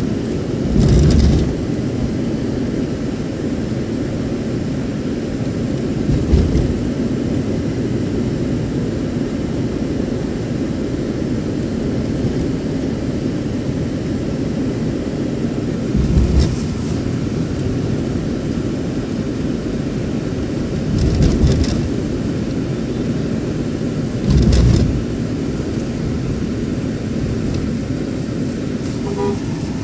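Steady road and engine noise of a moving vehicle heard from inside it, with about five brief louder rushes or bumps spread through.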